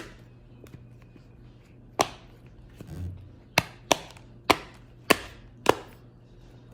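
Dimple fidget toy's silicone bubbles being pressed, giving about seven sharp pops at uneven intervals, with a soft low thud about three seconds in.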